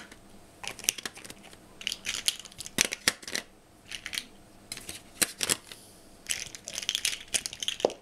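Plastic hexagonal mosaic pieces clicking and rattling as they are handled and pressed onto a peg board, in several short bursts of clicks with pauses between them.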